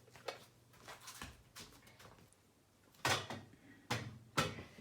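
Kitchen clatter: short knocks and bangs of things being put down and drawers or cupboards being handled. A few light knocks come first, and louder bangs come about three seconds in and again near the end.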